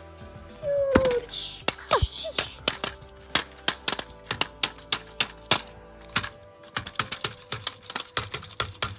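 A rapid, irregular run of sharp clicks or taps, about three to four a second, with a couple of falling, whistle-like tones about a second in.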